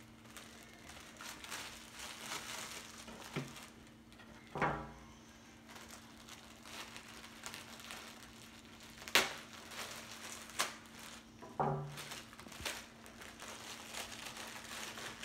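Plastic packaging bag crinkling and rustling as it is handled and worked open by hand, with a few sharper crackles and clicks.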